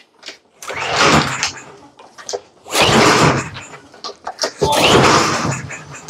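Briggs & Stratton push-mower engine being pull-started three times, each pull a second-long whir of the recoil starter and the engine turning over without catching. The mower has sat unused for a long time; spark and compression are confirmed, and the mechanic suspects more than one problem, with the carburetor in question.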